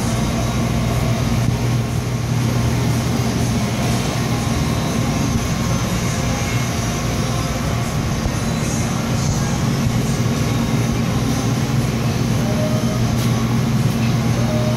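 Refrigerated display case running: a steady low mechanical hum from its cooling fans and compressor.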